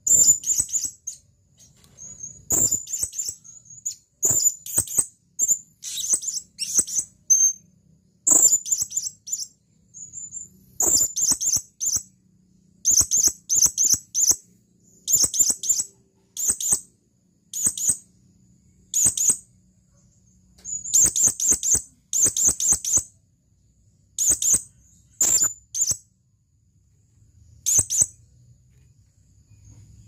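Male blue-crowned hanging parrot (serindit) calling: bouts of shrill, very high-pitched chirping notes, about one bout a second, with a few short pauses. This is the male's call to a female.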